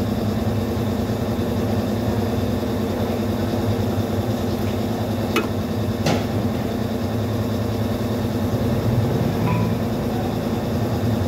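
A steady engine hum, with two sharp clicks about five and six seconds in as crimping pliers close on a blue insulated wire terminal.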